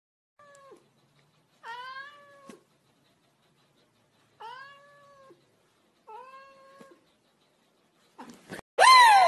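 Domestic cat meowing four times, each call short, rising and then holding its pitch. Near the end a louder falling tone cuts in as music starts.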